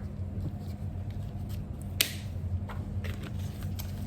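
Small kitchen handling sounds from measuring spoons and spice containers while dried herbs are measured out: one sharp click about two seconds in and a few fainter taps, over a steady low hum.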